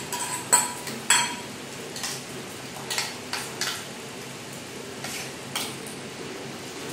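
Stainless-steel bowls clinking twice with a short ring as grated cucumber is tipped and tapped out of one bowl into another, then a spoon stirring and scraping through the curd in the steel bowl.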